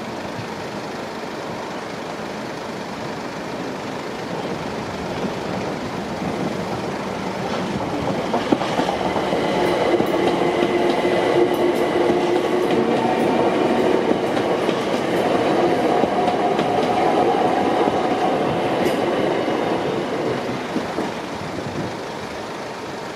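London Overground Class 378 electric multiple unit passing, building up from about six seconds in and fading away near the end. While it is loudest it gives a steady electric motor whine at several pitches, with faint clicking of wheels over rail joints.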